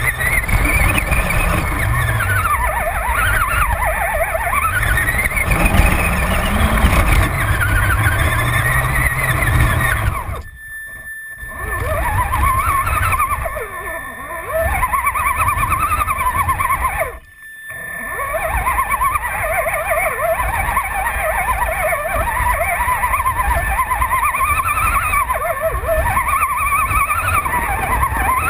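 Radio-controlled truck's motor and gears whining, the pitch rising and falling with the throttle, over rumbling from the rough ground beneath. The sound drops out briefly twice.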